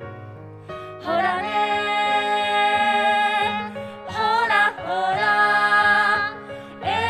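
Song from a stage musical: a voice holds long, wavering notes over instrumental backing, which comes in much louder about a second in.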